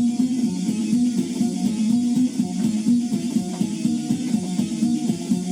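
Background music: a guitar-led track with a steady rhythm.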